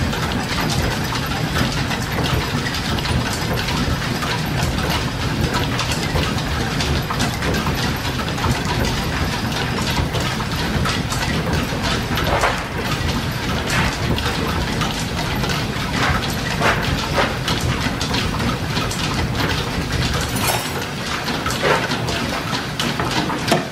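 Steam-driven line-shaft machinery running: a steady low rumble with a rapid mechanical clatter and scattered sharp ticks from the belts, shafting and belt-driven lathe. The deepest part of the rumble drops away about three seconds before the end.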